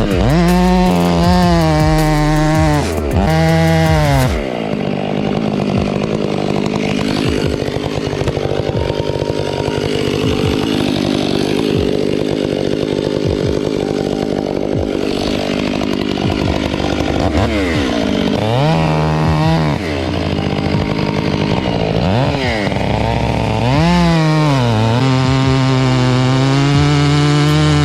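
Chainsaw revving up and down in short bursts, then running at a lower, rougher pitch under load as it cuts through a trunk for about twelve seconds. It revs again and runs at a steady high pitch near the end.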